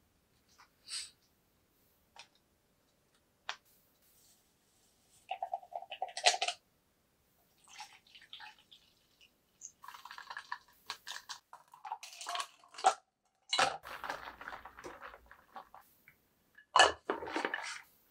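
Light handling noises: scattered taps and clicks, then rattling and clinking as a straw stirs a drink in a plastic tumbler, with the loudest clatter near the end as the cup is moved and set down.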